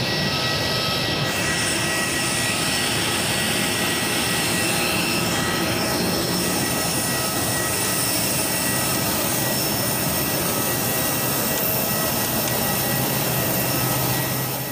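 Jet aircraft turbine running: a steady loud rushing noise with several high whining tones over it.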